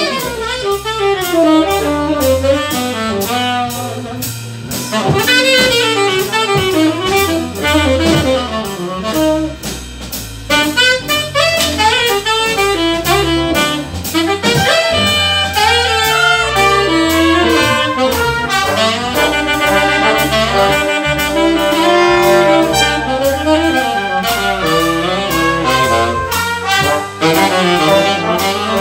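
Jazz big band playing live: saxophones and brass (trumpets, trombones) over a steady beat.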